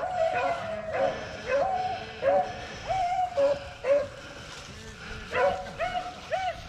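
Beagles baying in short, repeated yelps, several dogs calling over one another as the pack gives voice on a rabbit's trail, with a short lull a little past the middle.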